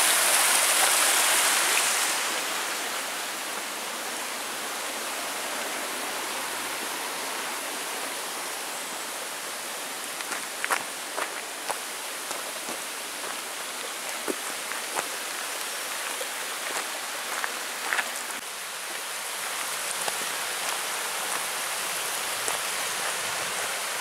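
Mountain stream rushing over rocks in small cascades. The rush is loudest for the first couple of seconds, then settles into a steadier, slightly softer flow. A few light clicks are scattered through the middle.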